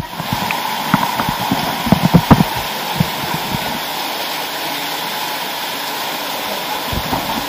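Small waterfall splashing into a rocky pool, a steady rushing of water heard close up. During the first three seconds or so, irregular low thuds come through as falling water and spray strike the camera.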